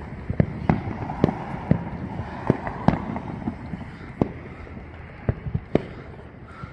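Fireworks exploding, about a dozen sharp bangs at irregular intervals. They come thick in the first three seconds, then thin out.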